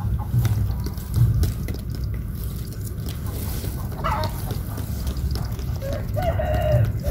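Light water splashing and dabbling as a baited eel line is jiggled by hand in a shallow muddy water hole, over a steady low rumble. A chicken clucks in the background about four seconds in and again near the end.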